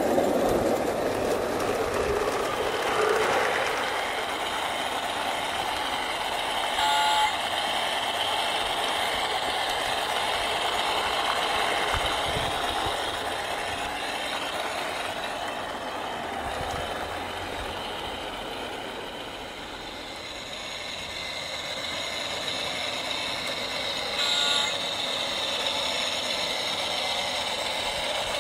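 Garden-railway model trains rolling along 45 mm gauge track, a steady running clatter of wheels on rail. Two short toots sound, about 7 seconds in and again about 24 seconds in.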